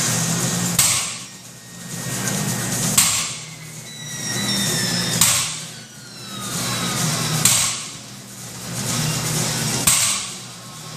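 Loaded barbell plates tapping down on a wooden lifting platform, five times about every two seconds, once for each rep of stiff-legged deadlifts.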